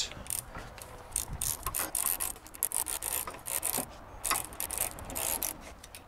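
18 mm ratchet wrench clicking in short, irregular runs as it is swung back and forth, running the top nut down on a coilover strut's shock shaft.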